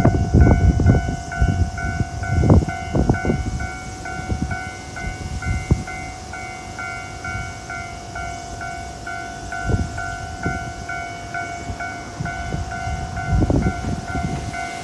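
Level-crossing electronic warning bell ringing in a steady repeating ding about twice a second, over the rumble and wheel knocks of a passing train. The train noise is loudest at the start, dies down, and swells again near the end.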